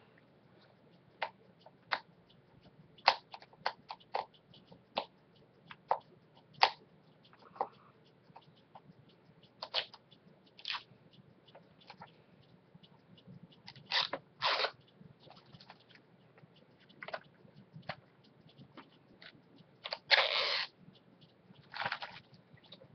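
Plastic shrink wrap being peeled off a Blu-ray case: scattered sharp crinkles and crackles, with a few longer tearing rustles about fourteen seconds in and again near the end.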